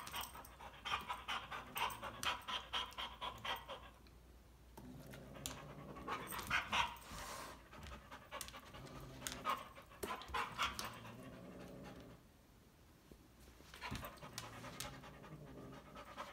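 An Airedale terrier panting fast and rhythmically, about three breaths a second, in bouts with short pauses.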